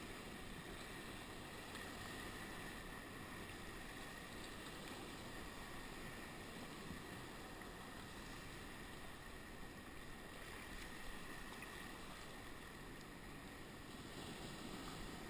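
Steady rushing of wind and choppy sea water around a sea kayak, even throughout with no distinct paddle strokes or single splashes standing out.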